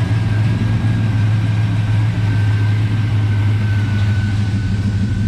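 GM LS3 6.2-litre V8 idling steadily, nice and smooth, with a faint steady high whine above the low engine hum.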